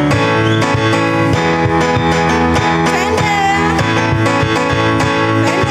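Praise and worship band music with guitar, held chords over a steady beat, and a short sung phrase about three seconds in.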